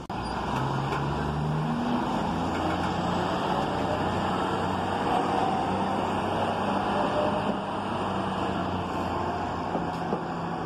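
Subway work train's diesel locomotive running with a steady low engine drone, its pitch stepping a little near the start, while the steel wheels of the locomotive, flatcars and crane car rumble along the rails with a few clicks over the rail joints.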